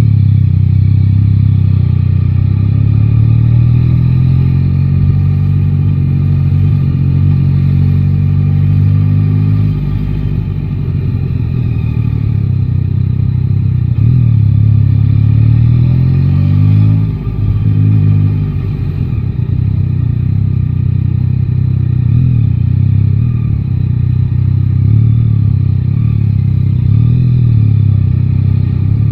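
Yamaha Tracer 9 GT's inline three-cylinder engine running on the move, its pitch repeatedly rising and falling with the throttle and gear changes, with a brief drop just past halfway. A steady low wind rumble on the microphone lies underneath.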